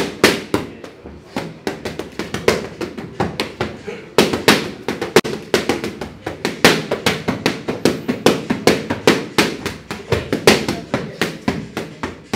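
Boxing gloves striking focus mitts in fast combinations: a rapid run of sharp slaps, several a second, with a short break about four seconds in.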